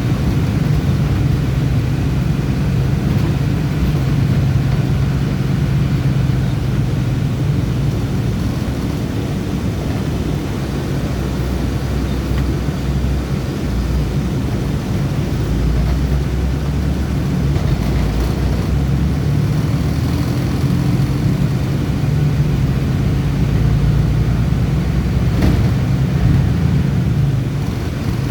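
Bus engine and road noise while driving: a steady low drone, with a brief click about 25 seconds in.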